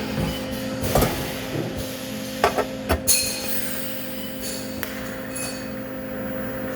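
A few sharp metal clanks and knocks, about three in the first three seconds, over a steady electrical hum, with a hiss joining after about three seconds.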